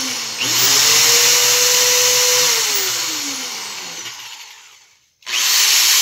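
Corded electric drill's motor spinning at full speed on the trigger, briefly dipping and running up again about half a second in, then released and winding down with a falling whine before starting up again near the end. The drill is running again after an intermittent bad contact, which the owner puts down to the power cord and treated with contact cleaner.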